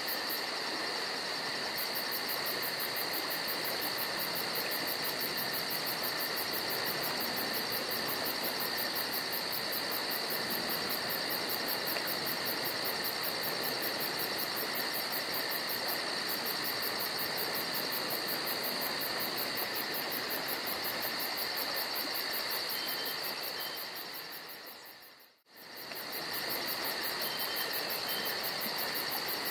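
Steady chorus of insects such as crickets: a constant high trill with fast pulsing, over an even hiss. The sound fades out and comes back in briefly near the end.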